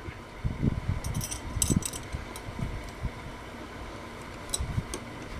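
Scattered soft knocks and a few light metallic clicks from hand work on a door hinge mortise with a wood chisel, over a faint steady hum.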